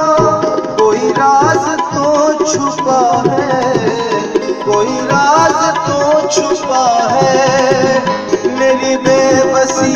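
Ghazal accompaniment: tabla playing a quick, busy rhythm under a melody on harmonium and electronic keyboard.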